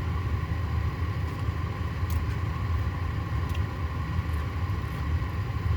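Steady low rumble with a faint even hum, like a vehicle's engine running, and a few faint clicks.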